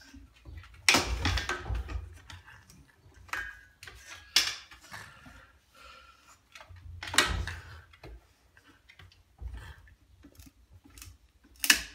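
Irregular wooden knocks and scrapes as a long stick held crosswise in a French bulldog's mouth bumps against a door frame, with quiet in between.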